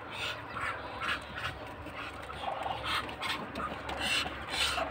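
Muscovy ducks giving repeated short, breathy hisses as the flock moves about, with one brief call about two and a half seconds in.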